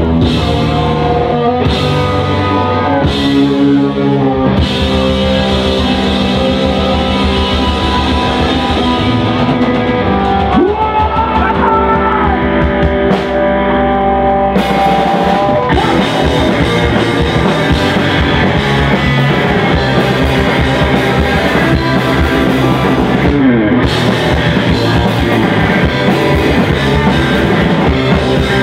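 Rock band playing live: electric guitars, bass and drum kit, with a vocalist singing over them.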